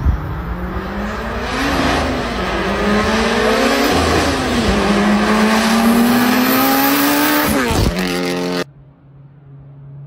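Honda Civic Type R EK9's naturally aspirated 1.6-litre B16B VTEC four-cylinder revving hard under acceleration. The pitch climbs and falls back several times as it shifts up. About eight and a half seconds in, the engine sound cuts off abruptly, leaving a faint low hum.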